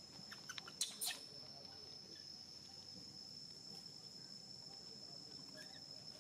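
Steady high-pitched insect drone, with a cluster of sharp clicks and crackles about a second in, the two loudest close together.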